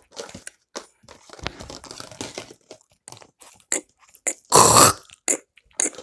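Handling of a thin plastic bag and cardboard boxes: scattered crinkles, rustles and small clicks, with one loud half-second rasping burst about four and a half seconds in.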